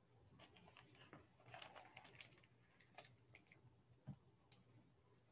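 Faint rustling and light clicks of a hardcover picture book being handled as its back cover is swung shut.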